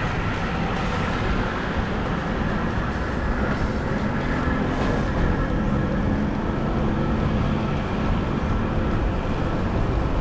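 A car driving on a city street: steady engine and road rumble.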